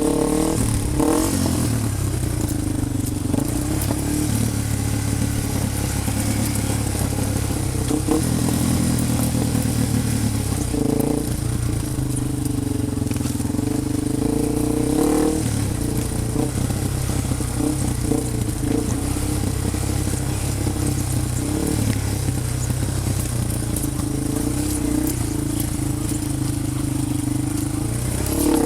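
Off-road vehicle engine running under load, its pitch rising and falling as the throttle changes, with rattling and clatter over the rough ground.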